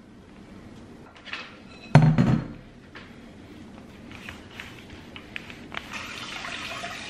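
Pizza dough being worked on a floured granite countertop with a wooden rolling pin: light knocks and rubbing, and one heavy thump about two seconds in. A steady rushing noise starts near the end.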